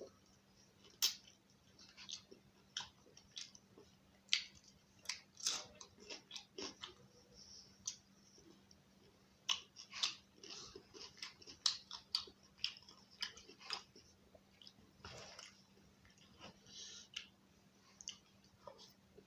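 Close-miked eating sounds of a person eating curry with roti: irregular wet chewing, lip-smacking and mouth clicks, coming in bursts of several a second with short pauses between.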